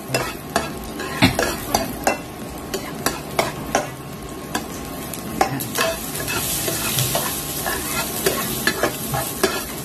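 Chopped garlic and onion sizzling in hot oil in a non-stick frying pan, stirred with a metal slotted spatula that scrapes and taps against the pan many times. The sizzle grows brighter about six seconds in.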